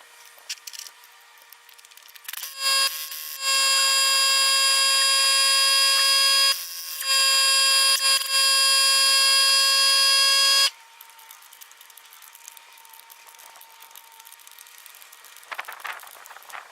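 Air impact wrench running in bursts, a steady high whine with many overtones for about eight seconds, cut off briefly twice and then stopping abruptly.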